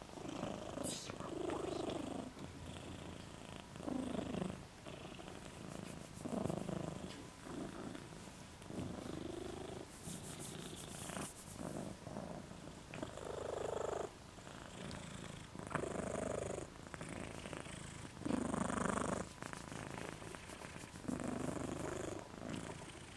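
A sleeping pet snoring, with one rasping snore about every two to two and a half seconds in a steady rhythm.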